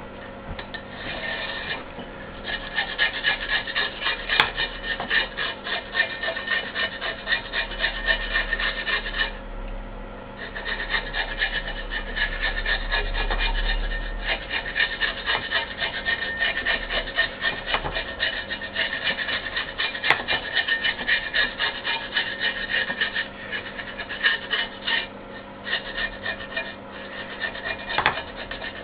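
Rapid back-and-forth abrasive scraping strokes worked by hand, running in long spells that break off briefly about ten seconds in and again about twenty-three seconds in, over a faint steady hum.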